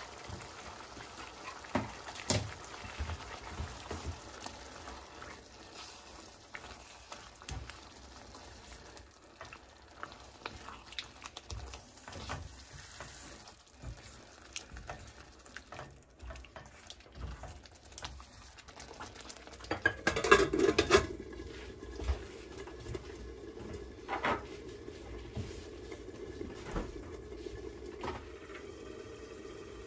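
A spatula stirring and scraping thick simmering curry sauce in an iron pan, with scattered clicks against the pan. About two-thirds of the way through comes a loud clatter as a metal lid goes on the pan, after which the sauce simmers under the lid with a steady low noise and a few more clicks.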